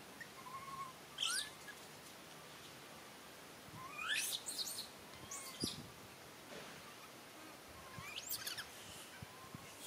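Infant long-tailed macaques giving high, thin squeals that sweep steeply upward. A single cry comes about a second in, a cluster of several around four to five seconds in, and another near the end.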